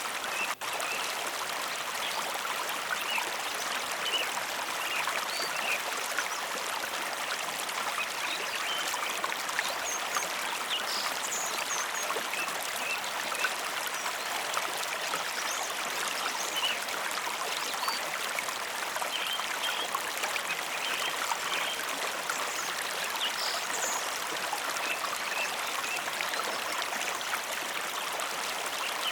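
Mountain river flowing steadily, a dense rushing wash of water with small splashes and trickles on top. There is a brief dropout in the sound just over half a second in.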